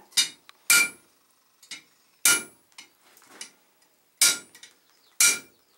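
Blacksmith's hammer striking the hot head of a hand-forged nail held in a nail header on the anvil: four heavy blows a second or two apart, each with a short metallic ring, and lighter taps between, shaping a small pattern on the nail's head.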